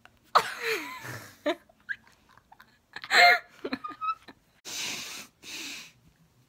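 Breathy, wheezing vocal noises from a young woman, with a short pitched squeal about three seconds in and two hissing exhalations near the end.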